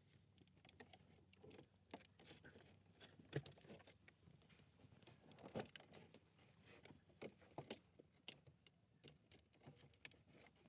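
Faint, scattered clicks, taps and small rattles of a blend door cable and plastic dash parts being handled and routed under a dashboard. The loudest click comes a little over three seconds in, with another clear one about halfway through.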